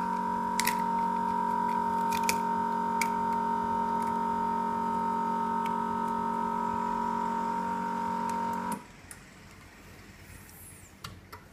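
Vacuum pump of an LCD separator machine running with a steady hum, a few light clicks on top, then cutting off suddenly near the end and leaving only faint room noise.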